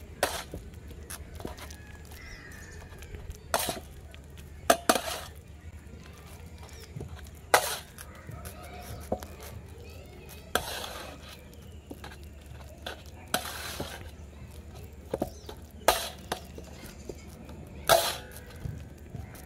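Steel spatula mashing boiled bananas on a stainless steel plate: irregular sharp clinks as the blade strikes the plate, and a couple of longer scrapes across it around the middle.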